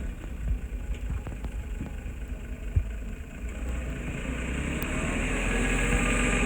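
Diesel engine of heavy earthmoving equipment running with a low rumble. It grows louder through the second half as a steady pitched drone comes in. There is a single short knock about three seconds in.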